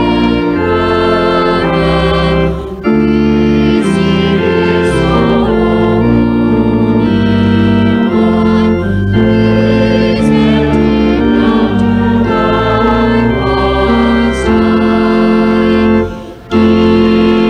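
Organ playing slow, sustained chords that change every second or so, with two short breaks between phrases: one about three seconds in and one near the end.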